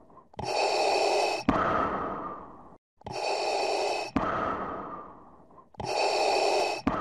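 Intro logo sound effect: three repeated rushing swells of noise, each about a second long, abruptly cut off by a sharp click that then fades away.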